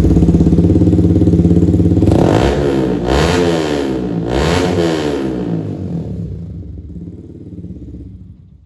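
Kawasaki Z900 inline-four motorcycle engine idling, then revved a few times about two seconds in, its pitch rising and falling with each blip, before the sound fades away.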